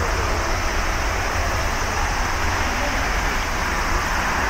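Boeing 787's two turbofan engines at takeoff thrust during the takeoff roll, a loud, steady jet roar.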